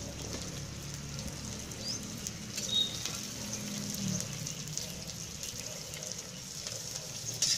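Sliced onions and green chillies frying in oil in an iron kadhai over a wood fire: a steady sizzle with fine crackles.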